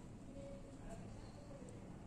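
Quiet room tone: a faint steady low hum and hiss, with a couple of faint light ticks.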